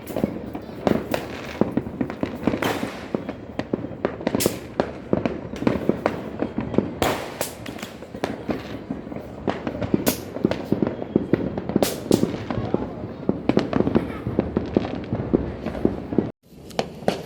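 Fireworks and firecrackers going off all around, a dense, irregular run of sharp bangs and crackles overlapping one another; the sound cuts out abruptly for a moment near the end.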